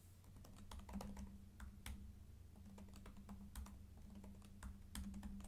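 Faint typing on a computer keyboard: irregular key clicks over a low steady hum.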